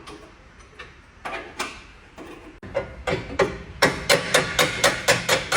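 A series of sharp hammer blows, a few scattered strikes at first, then a quick run of loud blows at about four or five a second in the second half.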